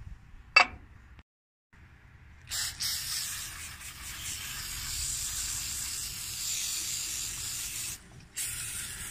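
A sharp click about half a second in, then an aerosol can spraying cleaner in a long steady hiss of about five seconds. After a short pause it sprays again near the end.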